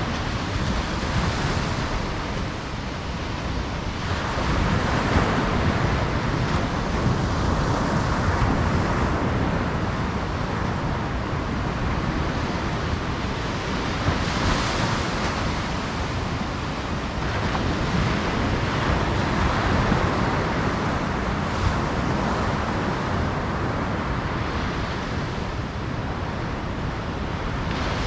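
Ocean surf washing onto a beach: a continuous rush of breaking waves that swells and eases every few seconds.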